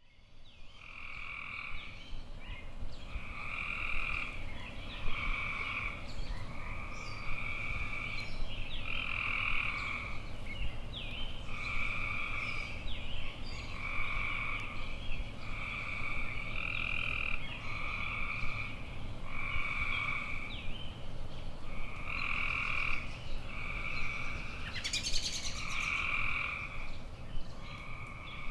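Frogs calling in chorus: calls repeat about once a second, each lasting half a second to a second, with brief higher chirps between them. The chorus fades in over the first couple of seconds, and a short, high, buzzy rattle cuts through near the end.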